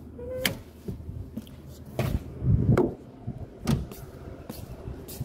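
Car hood release lever pulled with a sharp click about half a second in, then a few separate knocks and thuds of a car door being handled.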